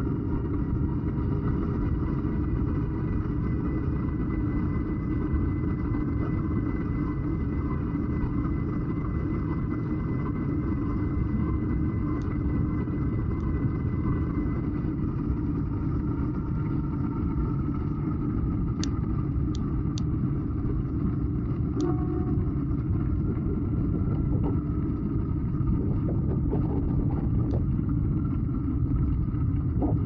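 Steady low rumble of riding a bicycle on a trail: wind on the microphone and tyre noise, with a few faint short ticks about two-thirds of the way through.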